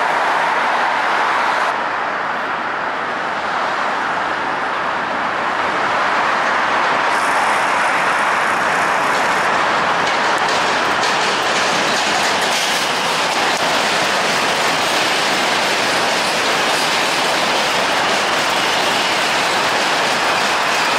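New York City subway train crossing the Williamsburg Bridge, its wheels running loudly on the rails of the steel bridge deck as it approaches and passes beneath. The noise grows about six seconds in and then holds steady.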